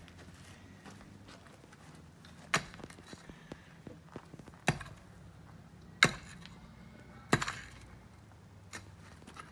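Mattock chopping into the soil of a trench: four sharp strikes one to two seconds apart, then a fainter one near the end.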